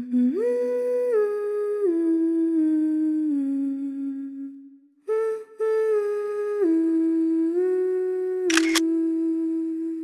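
A melody hummed in a steady voice, each note held and then stepping down to the next, with a short break about five seconds in. A brief click sounds near the end.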